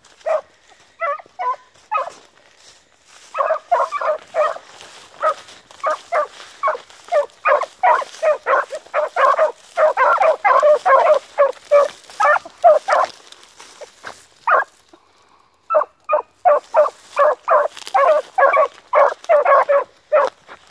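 A brace of young beagle hounds giving tongue while running a rabbit: quick, short barks, several a second, baying on the scent. The barking is sparse at first, then comes thick and fast, stops for a couple of seconds past the middle, and picks up again.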